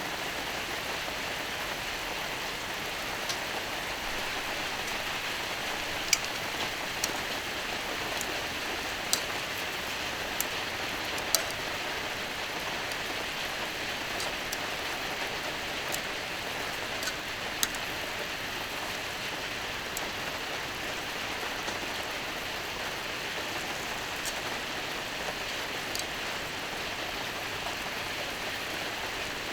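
Meat sizzling on a hot iron griddle: a steady frying hiss with scattered sharp pops of spattering fat.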